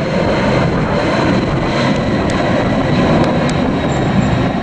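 Boeing 767-300ER twin-jet engines at takeoff power as the airliner departs, heard as loud, steady jet noise without a break.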